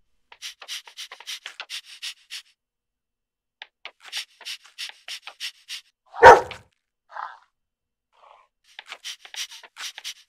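Dog panting in quick rhythmic breaths, about four to five a second, with a pause in the middle. About six seconds in comes one loud, short gruff sound from the dog.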